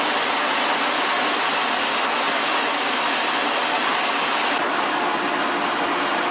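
Steady, loud mechanical running noise, an even rushing sound without a clear pitch; its higher part dips slightly about four and a half seconds in.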